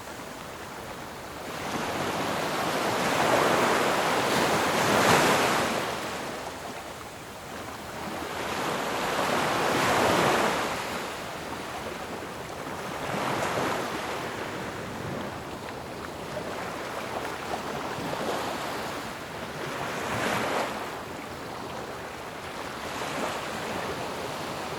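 Ocean surf: waves rushing in and falling back in slow surges every few seconds, the biggest about four and ten seconds in, with smaller, softer swells after.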